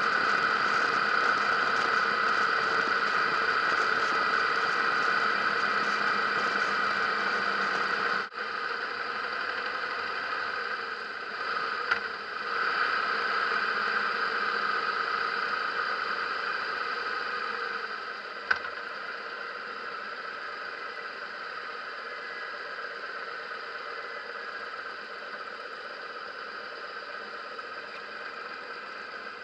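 Riding noise from a helmet-mounted camera on a Harley-Davidson motorcycle: the engine running with wind rushing over the microphone. A little over halfway through it drops to a quieter, steadier level as the bike slows, with a single sharp click just after.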